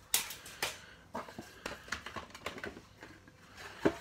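Irregular light clicks and knocks from hands handling a model railway car and its cardboard box on a wooden floor, the loudest knocks near the end.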